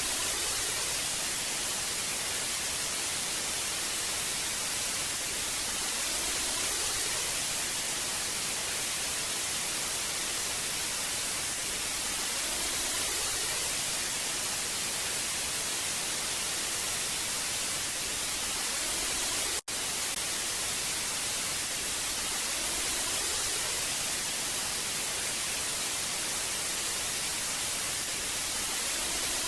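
Steady hiss of analogue television static, like an untuned old TV set, its energy weighted toward the high end. It cuts out for an instant about twenty seconds in, then carries on unchanged.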